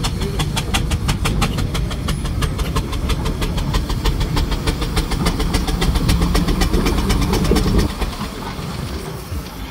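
Steam traction engine towing a trailer, driving past at speed: quick, even exhaust beats from its chimney, several a second, over a heavy low rumble that drops away about eight seconds in.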